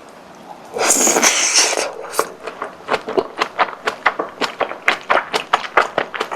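Close-miked food handling or eating sounds: a loud rustle about a second in, then a quick irregular run of crisp crackles and crunches.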